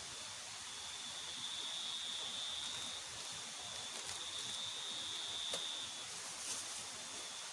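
Running river water with an insect's steady high-pitched drone above it, swelling and fading every second or two; a few faint ticks.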